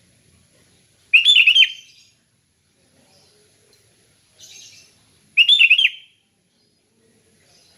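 Sooty-headed bulbul (kutilang) singing: two short, loud phrases of quick notes about four seconds apart, with a fainter call in between.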